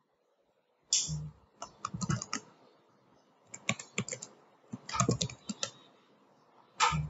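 Computer keyboard being typed on in several short bursts of keystrokes, with gaps between them.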